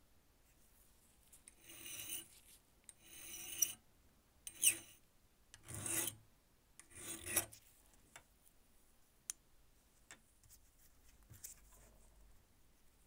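Flat hand file drawn across the top end of a brass lighter tube clamped in a vise: five separate strokes, one shorter than the rest, followed by a few faint clicks as the part is handled.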